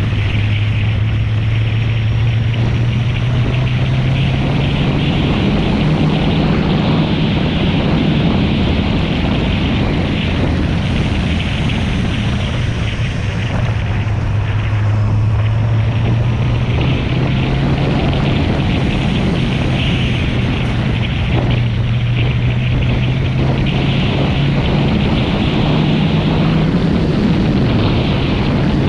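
Kawasaki Z750 inline-four engine running under way at a fairly steady speed, its note stepping up and down slightly, under heavy wind rush.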